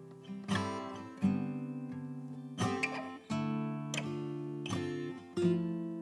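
Acoustic guitar strumming chords in a slow, even rhythm, each chord ringing out before the next, with no singing.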